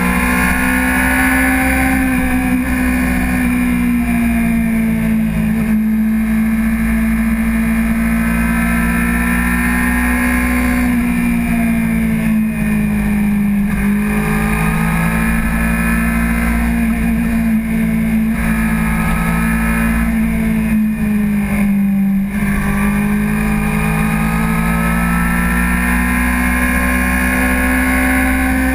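Honda CBR600RR sport bike's inline-four engine running at cruising revs, its pitch rising and falling slowly every few seconds as the throttle is opened and eased through the bends, with a steady wind rush underneath.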